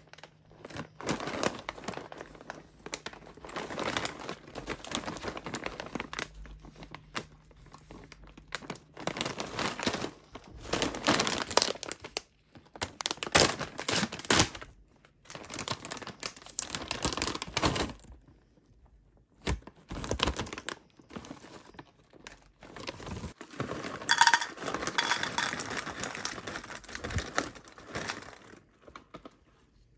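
Plastic snack bag crinkling in repeated bursts as it is handled and torn open, then the crunchy cereal pieces are poured into a small glass bowl near the end.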